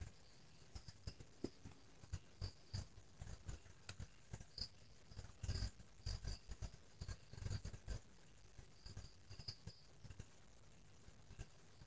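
Faint handling noise: a small cardboard product box scuffing and bumping against the fingers as it is turned over in the hands, in irregular soft rubs and taps.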